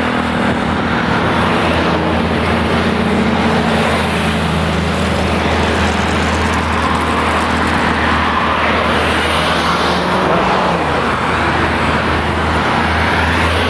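Busy road traffic close by: cars and trucks passing in a steady rush of tyre and engine noise, with a low engine hum throughout and a heavy semi-trailer truck going past near the end.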